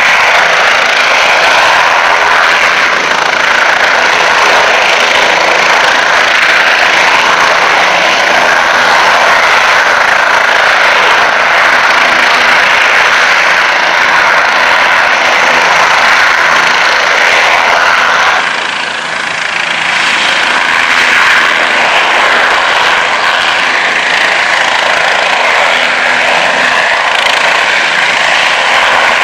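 Bell 407 helicopter hovering: its single turboshaft engine whines and the rotors run steadily and loudly. A little past halfway the sound drops slightly and turns a touch duller, then carries on as before.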